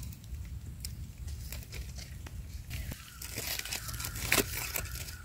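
Knife scraping and cutting through wild mushroom stems, with dry leaf litter crinkling under the hands: a run of small scrapes and crunches, the sharpest about four seconds in. A faint steady high tone comes in about three seconds in.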